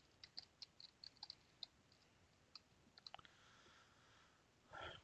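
Faint computer keyboard keystrokes: a quick run of clicks in the first second and a half, then a few more about three seconds in, as a session name is typed.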